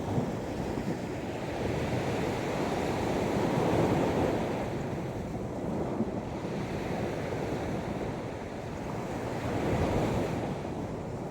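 Sea waves breaking and washing up on a beach, a steady surf that swells louder twice, about four and ten seconds in.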